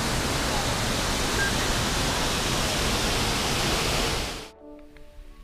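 Steady rushing of Multnomah Falls, a tall plunging waterfall. It cuts off suddenly about four seconds in, and faint music follows.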